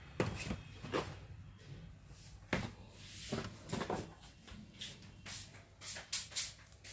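Irregular light knocks and clicks of things being handled, about one a second, over a faint steady low hum.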